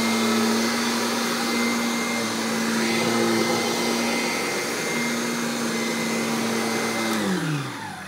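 Kirby G5 upright vacuum's motor running steadily with a loud hum and rush of air. About seven seconds in it winds down, its pitch falling as it slows.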